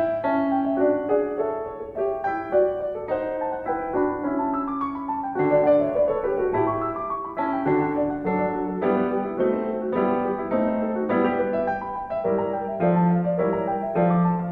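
Background piano music: a melody of separate notes over lower bass notes.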